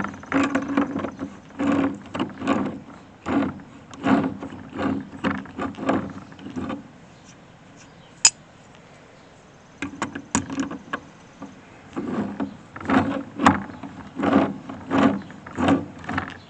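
The hydraulic belt-tension adjuster on a Vermeer round baler being turned with a wrench: a run of short mechanical strokes about two a second. A pause follows with one sharp click about eight seconds in, then another run of strokes as the adjuster is run down until it bottoms out.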